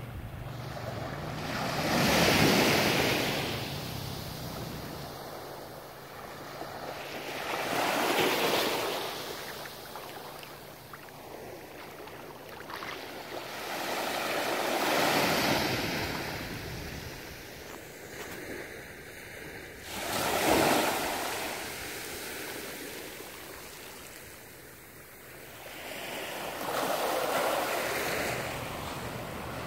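Small sea waves washing up onto a beach, one surge about every six seconds, five in all, each rising and falling off.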